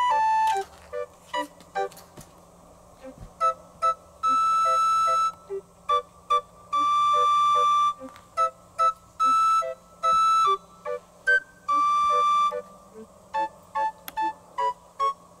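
Background music: a light melody of short staccato notes, broken by a few long held high notes of about a second each.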